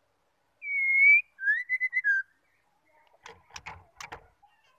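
Female white-rumped shama whistling: one clear, slightly rising whistle, then a quick warbling phrase of several slightly lower notes. A handful of short, rough clicks follow near the end.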